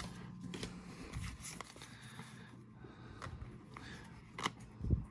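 Pokémon trading cards being handled and slid through by hand: soft card swishes and light taps, with a couple of louder taps near the end.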